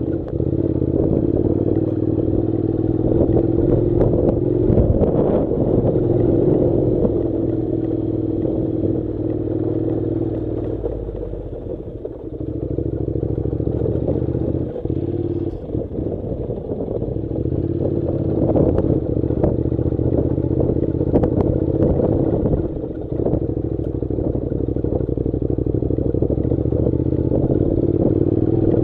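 Honda NC700's parallel-twin engine running at low, steady revs as the motorcycle rides a rough off-road track, with clatter and knocks from the bike over stones. The engine note drops briefly about twelve seconds in, runs lower for a few seconds, then picks up again.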